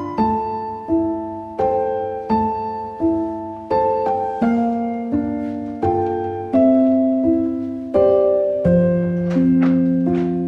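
Background piano music: slow notes and chords struck about every 0.7 seconds, each ringing and fading before the next.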